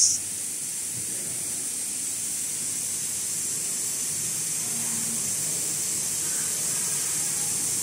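A steady, even hiss that does not change, with faint short tones about halfway through.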